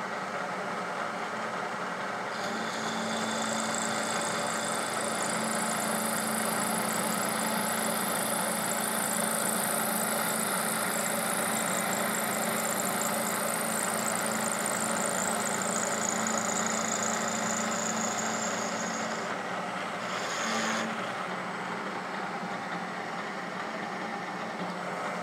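Milling machine spindle running while a carbide end mill cuts a flat into a stainless steel bolt head. A high-pitched cutting hiss joins about two seconds in and stops just before twenty seconds, leaving the spindle running on its own.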